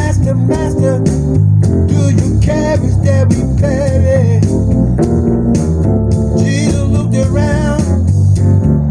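Music: an instrumental break in a song, with organ and bass over a steady beat.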